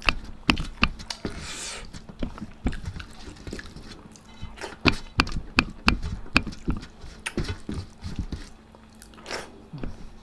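Close-miked chewing of a mouthful of food, with repeated wet lip smacks and mouth clicks at an uneven pace.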